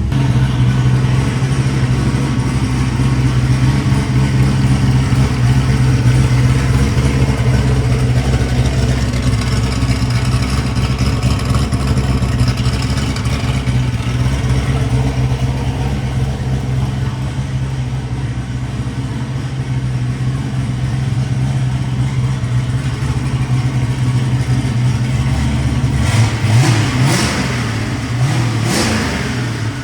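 Freshly rebuilt 402-cubic-inch LS V8 running steadily at idle, then revved up twice near the end.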